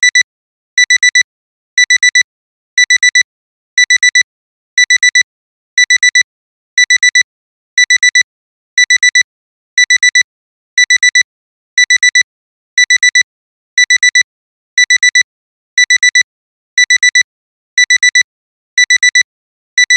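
Alarm clock alarm beeping: quick groups of four short, high-pitched beeps, repeating about once a second, signalling that the timer has run out.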